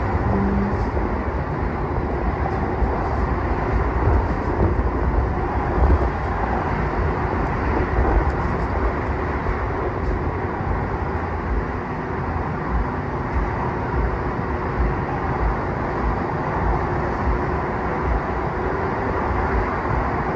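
Steady noise of multi-lane freeway traffic, tyres and engines blending into one continuous rush with low rumbles that rise and fall.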